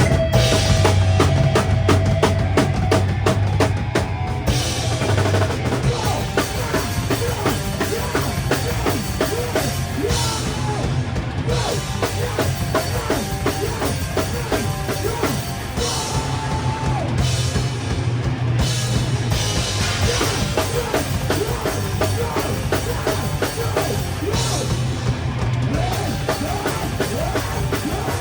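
A heavy rock band playing live, with the drum kit's kick and snare up front in a steady, driving beat.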